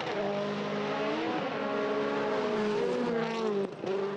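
Rally car engine running hard on a gravel stage, its pitch rising and falling through revs and gear changes. There is a short dip in loudness near the end, then it comes back up.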